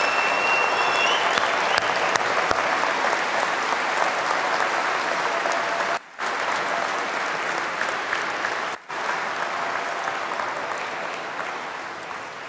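A large audience applauding, cutting out briefly twice, about six and nine seconds in, and dying away near the end.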